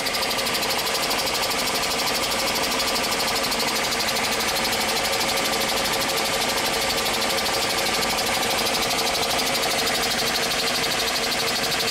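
DOALL 2613-2 vertical band saw's drive running steadily at top speed in low range: the electric motor, V-belts and variable-speed pulleys turning with an even whir and several fixed tones.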